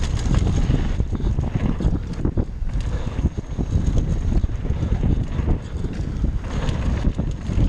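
Wind buffeting a GoPro's microphone on a mountain bike riding fast down a dirt trail, a heavy steady rumble, with the tyres crunching over gravel and frequent short knocks and rattles from the bike on the rough ground.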